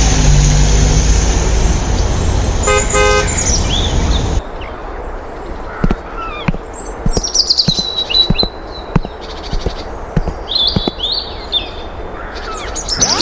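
Loud rumbling traffic-like noise with a short horn toot about three seconds in; the noise cuts off suddenly about four seconds in. Then birds chirp, over scattered sharp knocks or taps.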